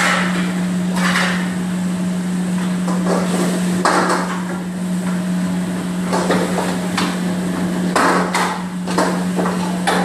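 Metal ladle knocking and scraping against a wok during stir-frying, irregular clanks every second or so over a steady low hum.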